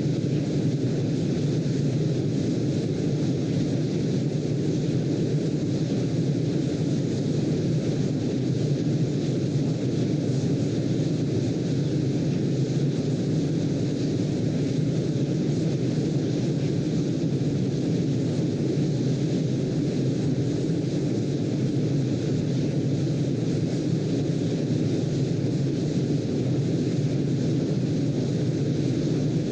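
Steady, deep rushing noise from a sleep-aid track: an even hiss weighted toward the low end, with no rise and fall of waves and no pauses.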